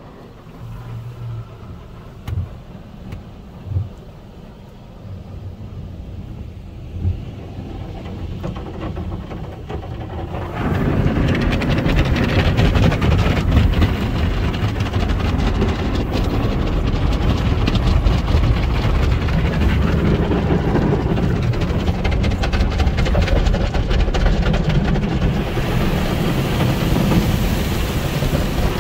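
Automatic car wash tunnel equipment heard from inside the car: a low rumble with a few thumps, then from about ten seconds in a loud, steady rushing as heavier equipment works on the car.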